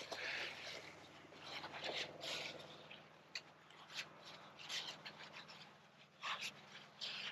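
Faint, irregular scraping and rubbing strokes with a few sharp clicks: a cast iron Dutch oven being scrubbed out after boiling water has loosened the stuck-on residue.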